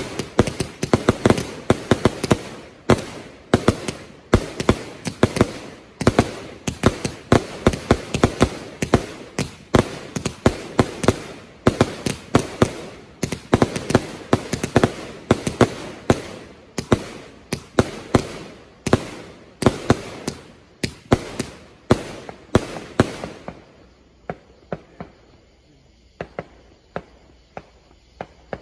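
Tannerite M-25 Golden Willows 350 g consumer firework cake, five chained for 125 shots, firing a rapid barrage of shots, about two or three a second. The barrage stops about 24 seconds in, leaving only a few faint scattered pops.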